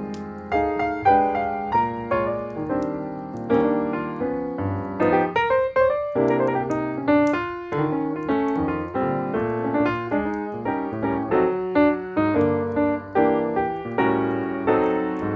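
Piano music: a steady stream of struck notes and chords, each fading after it is played.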